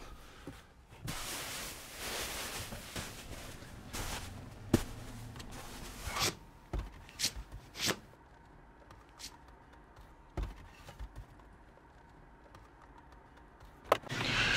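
Quiet rustling with scattered light clicks and knocks from a person moving about in a car's driver's seat. The sharpest knocks come about five seconds in and again near the end.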